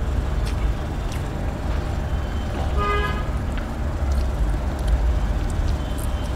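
Steady low rumble of road traffic with a single short car-horn toot about three seconds in.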